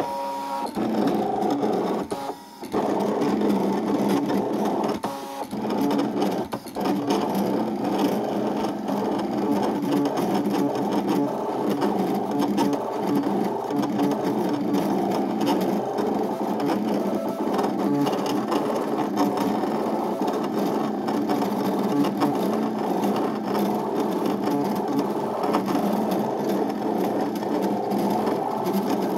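Brother ScanNCut CM260 cutting machine drawing with a pen in its pen holder: its motors whir steadily as the pen carriage and mat move back and forth, with a brief pause about two and a half seconds in.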